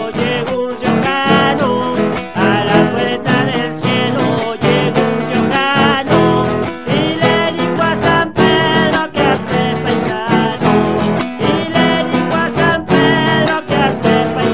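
A gato cuyano, an Argentine folk song in the Cuyo style, played on criollo guitars, strummed and picked at a quick lilting pace, with voices singing.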